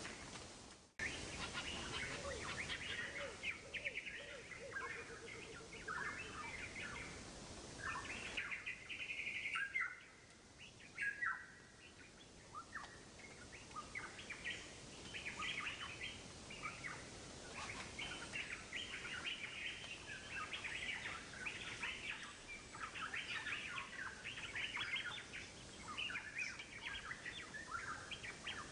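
Birds chirping continuously in the background, a dense run of short, high chirps with no single call standing out.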